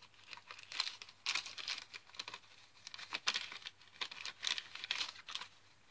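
A glassine bag and paper tags being handled, crinkling and rustling in a run of short, irregular crinkles.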